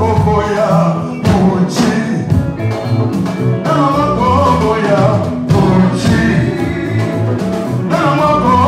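Live Congolese band rehearsing: several male singers at microphones sing over drums and low bass notes, the drum strokes keeping a steady beat.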